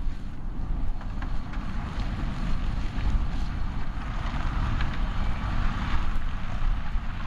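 John Deere tractor running steadily under load as it pulls a Hawe manure spreader whose rear beaters are throwing out manure, with wind buffeting the microphone.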